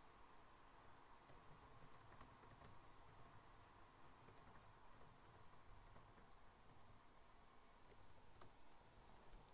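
Near silence: faint room tone with a few scattered, faint computer keyboard clicks.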